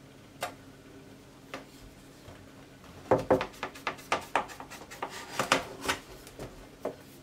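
Kitchen knife cutting through unbaked baklava layers along a plastic ruler in an aluminium tray, the blade clicking and tapping against the ruler and the tray. A couple of single clicks, then a quick run of taps for about three seconds, and one last click near the end.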